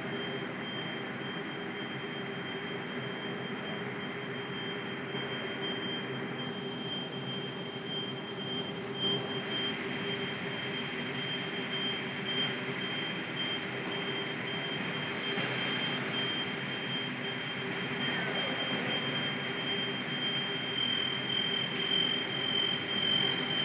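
Steady drone of industrial machinery with a constant high-pitched whine over it.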